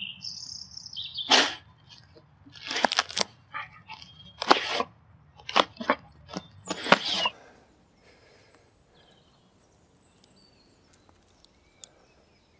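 A dog digging in loose woodland soil: a run of short, sharp scrapes of its paws through earth and leaf litter, stopping about seven seconds in. Faint bird chirps follow.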